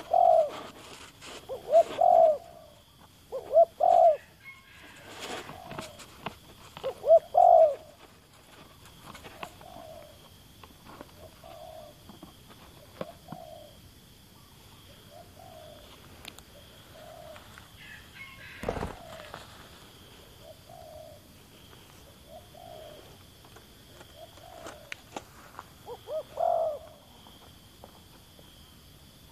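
Doves cooing: a run of short coos about every one to two seconds, the first few loud and close, the later ones fainter. A single brief knock about two-thirds of the way through.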